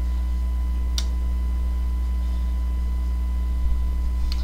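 Steady electrical mains hum, a low drone with faint higher tones over it, with one sharp click about a second in and a fainter tick near the end.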